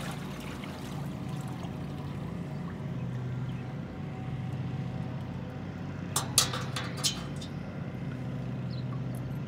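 Lake water sloshing as a person wades and ducks under a dock, over a steady low motor hum. A few sharp metal clinks come about six to seven seconds in, from dock bolts and washers being fitted.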